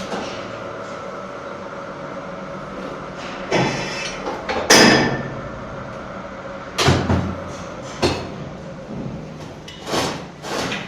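A steady hum with several sharp knocks or bangs over it, one or two seconds apart; the loudest comes about five seconds in.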